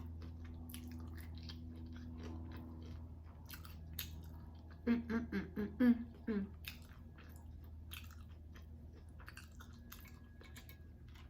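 Close-miked chewing and wet mouth clicks of a person eating a taco, with a few short voiced sounds about five to six seconds in.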